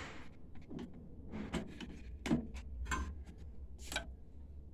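Scattered clicks, taps and short scrapes of metal and plastic printer parts being handled and pushed into place on a printer chassis, the sharpest knock a little over two seconds in, over a steady low hum.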